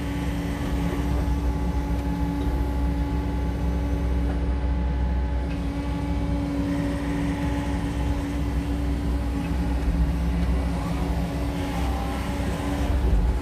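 SANY SY80U mini excavator's diesel engine running at a steady, even hum while the machine swings its boom and works the bucket.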